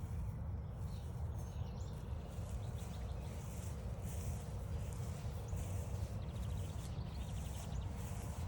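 Footsteps crunching along a trail about once a second over a low, steady rumble on the microphone, with birds calling; a brief rapid bird trill sounds a little past the middle.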